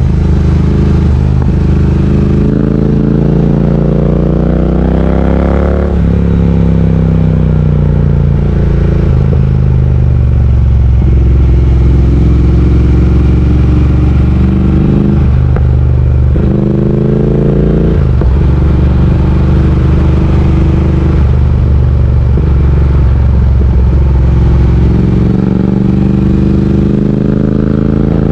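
Triumph Speed Twin 1200's parallel-twin engine under way, rising in pitch as it accelerates and dropping sharply at upshifts about 6 and 18 seconds in, with steady cruising stretches between.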